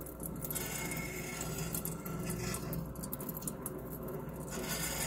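Frozen coconut-oil pucks melting in the heated stainless-steel kettle of a Great Northern GNP-800 popcorn machine, with irregular crackling and spitting. Under it is the steady hum of the kettle's stirrer motor.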